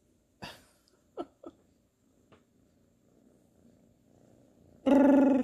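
Ginger tabby kitten purring softly and steadily while dozing. There is a click about half a second in, then two short falling squeaks, and near the end a brief, loud hum that holds one pitch.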